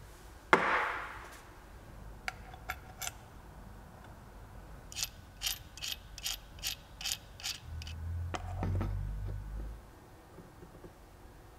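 Knurled metal nut of the soldering iron's screw-on cable connector being turned by hand onto the station's socket, giving a run of about eight small metallic clicks, roughly three a second. A short sharp handling noise comes about half a second in, and low knocks of the station being moved follow near the end.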